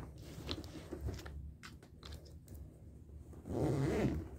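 Light clicks and rustles of things being handled while a bag is packed, with a short murmur of a voice about three and a half seconds in.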